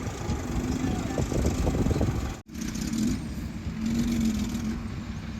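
Heavy diesel earthmoving machinery running steadily. The sound cuts out abruptly for an instant about halfway through, then resumes.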